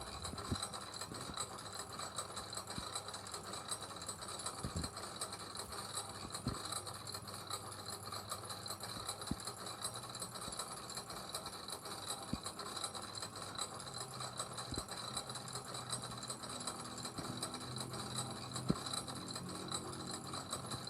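Mechanical gears turning with a continuous rapid clicking and rattle over a steady high whine, with a few louder clicks now and then. A low hum joins about two-thirds of the way in.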